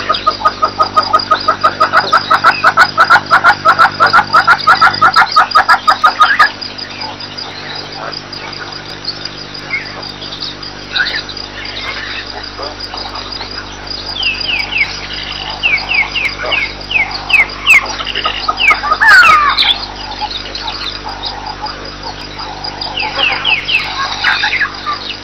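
Birds calling in the bush: a loud, fast run of repeated notes, about six a second, that stops abruptly about six seconds in, then scattered calls with short runs of quick falling notes. A steady low hum lies underneath.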